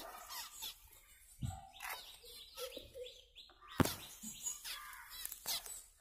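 Small finches chirping with short, repeated calls, with a couple of sharp knocks, the loudest about four seconds in.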